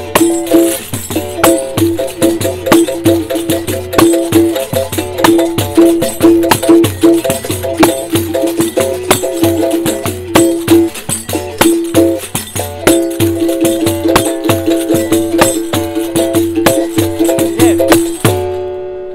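Capoeira instrumental: two berimbaus (gunga and viola) with their caxixi rattles and a pandeiro keep a steady rhythm, the berimbaus' struck-wire notes switching between pitches over the shaking of rattles and jingles. About eighteen seconds in, the playing stops and one last berimbau note rings out and fades.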